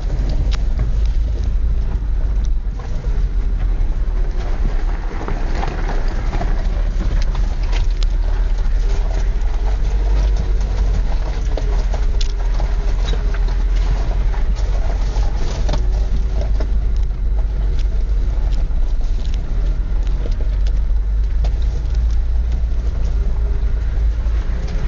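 Car driving slowly on a rough gravel mountain track, heard from inside the cabin: a steady low rumble of engine and tyres, with scattered clicks and knocks from the loose stony surface.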